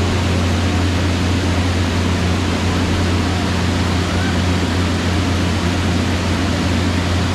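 Steady rushing wind buffeting the microphone, with a constant low hum under it.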